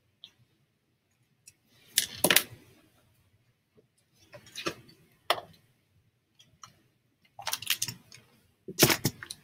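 Pen and marker tapping and scratching on notebook paper, then a calculator and the notebook being moved: a few scattered short clicks and scrapes, loudest about two seconds in and near the end.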